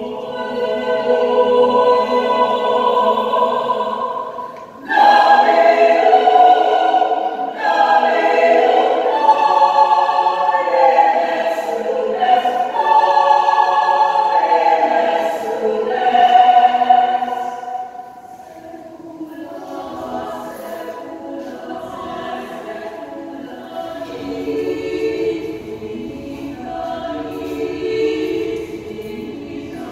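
Mixed-voice choir of men and women singing held chords, with a sudden loud full entry about five seconds in and a softer passage from about eighteen seconds on.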